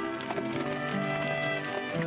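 Orchestral background score of held notes that change step by step, with a few faint knocks beneath.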